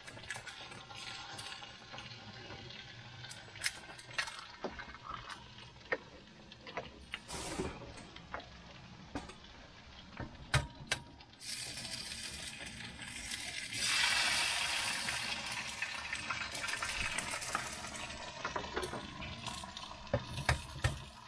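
Eggs frying in a small pan: a steady sizzle broken by sharp clicks and taps of eggshells and utensils against the pan. About 14 seconds in, a much louder sizzle bursts up as another egg goes into the hot pan, then fades over several seconds.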